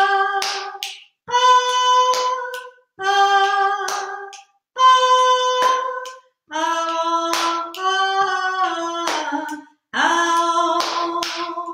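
A woman singing a repeated pattern of short held vowel notes, about one every 1.7 seconds, alternating between two pitches and then settling on lower notes for the last few, with sharp hand percussion falling in rhythm among the notes. It is an example of a second vocal part for improvised polyphony over a steady beat.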